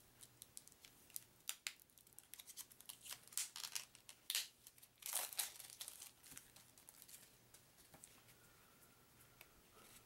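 Plastic wrap crinkling and tearing as it is pulled off a deck of game cards: a run of sharp crackles, loudest midway, that thins out after about six seconds.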